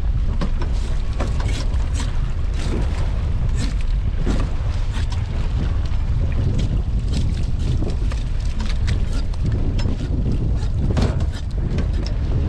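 Wind rumbling on the microphone in a small open boat at sea, with frequent irregular clicks, knocks and splashes as a weed-covered rope of lobster pots is hauled up over the side through a pot hauler.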